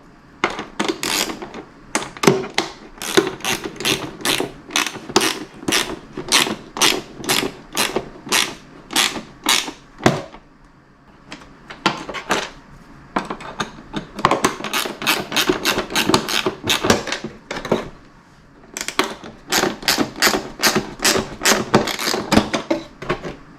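Hand tool clicking rapidly, about three sharp clicks a second, in three runs with short pauses between: a hex bolt being run down into a nylon locking nut that is held with pliers.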